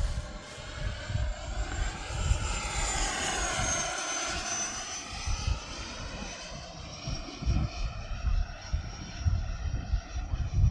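3D-printed radio-controlled Fouga Magister model jet flying past with a high whine, growing loudest about three seconds in and easing off as the pitch drops slightly. Wind gusts rumble on the microphone, more in the second half.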